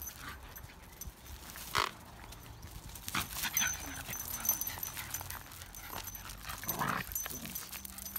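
Shiba Inu dogs heard at close range: a few short, sharp sounds from the dogs among scattered light clicks.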